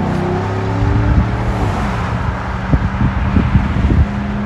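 A 2007 Chevy Tahoe's 5.3-litre V8 through a single Flowmaster Super 10 muffler, accelerating away; its note climbs briefly at first, then settles into a deep rumble.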